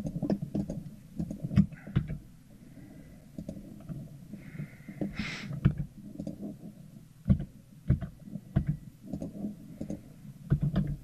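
Computer keyboard keys and mouse buttons clicking irregularly over a low rumble, with a brief higher-pitched squeak about five seconds in.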